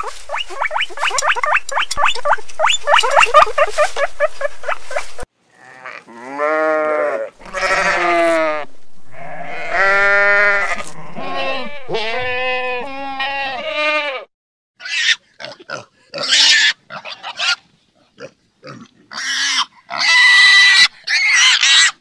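A rapid run of high chirps, then a flock of sheep bleating in several long, wavering calls, then piglets squealing in short sharp bursts.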